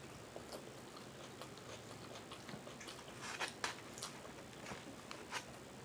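A person chewing food with the mouth close to the microphone: soft wet mouth clicks and lip smacks, with a cluster of louder smacks about three and a half seconds in.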